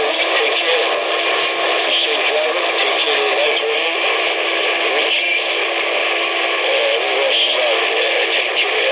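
CB radio receiver audio: a keyed-up transmission carrying a steady wash of static hiss with warbling, wavering tones running through it, squeezed into the thin radio band.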